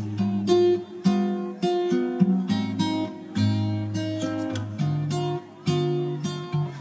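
Background music of an acoustic guitar, chords strummed and plucked in a steady rhythm.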